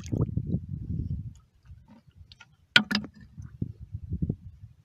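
Shallow seawater sloshing in irregular low pulses as someone wades and handles spider shells, with two sharp clicks close together about three seconds in.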